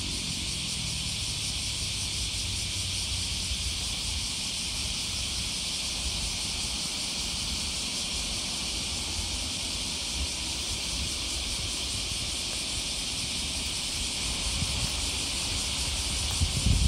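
A steady high-pitched hiss over a low rumble, with a brief louder knock near the end.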